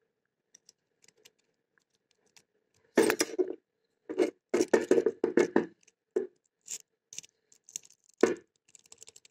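Jiggler key being worked in a simple single-sided wafer mailbox lock under light tension: irregular bursts of metal scraping and clicking, loudest about three seconds in and again near the end.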